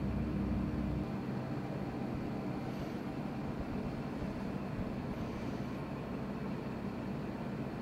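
Steady room hum, like an air conditioner or ventilation fan, with a low drone and no distinct events; a deeper rumble underneath drops away about a second in.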